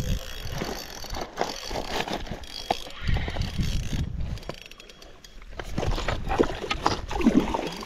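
Fishing reel being wound in against a hooked carp, its gears and ratchet ticking in a rapid run of small clicks, over low wind rumble on the microphone.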